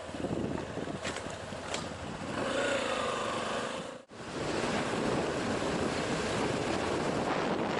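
Wind rushing over the microphone of a moving motorcycle, with the engine note rising and falling briefly in the first half. A short break about four seconds in is followed by steady wind rush.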